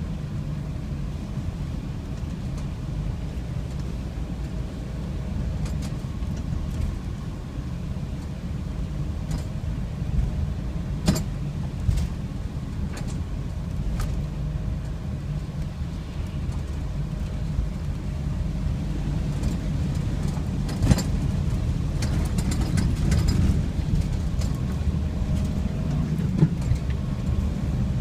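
Car driving through floodwater: a steady low rumble with a few sharp knocks scattered through it.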